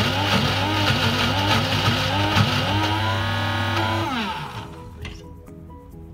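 Electric blender motor running at full speed while grinding a spice paste, its pitch wavering under load. About four seconds in it is switched off and winds down with a falling whine, and soft background music with plucked notes takes over.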